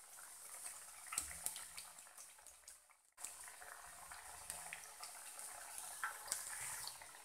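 Spinach and gram-flour pakoras deep-frying in hot oil: a faint, steady bubbling sizzle with small crackling pops. The sound drops out for a moment about three seconds in.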